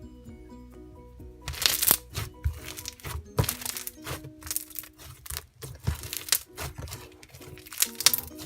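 Floam slime, slime packed with foam beads, being squeezed and kneaded, giving off quick irregular crackles and pops from about a second and a half in. Light background music plays throughout.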